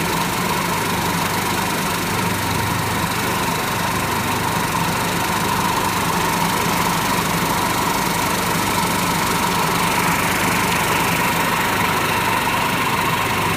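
Machinery of a puffed corn cereal production line running: a steady drone with a constant whine over a low hum, getting a little stronger about ten seconds in.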